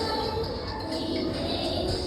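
Music playing at moderate level, with a few faint held notes over a steady hazy background.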